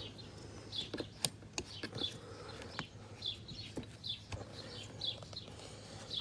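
A small bird chirping over and over, short high chirps coming about once or twice a second, with a few faint clicks and knocks mixed in.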